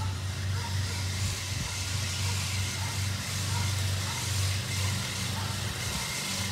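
A steady low mechanical hum of a motor or engine running, dipping briefly a couple of times, with a faint high chirp repeating about twice a second.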